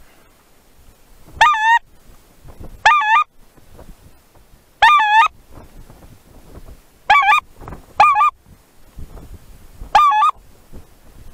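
Six loud goose honks, each a short wavering call of about a third of a second, spread irregularly a second or two apart.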